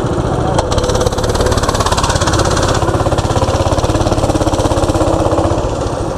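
Baja mini bike's small single-cylinder four-stroke engine running on throttle while riding, revving up about a second in and then holding steady. A single sharp click comes about half a second in.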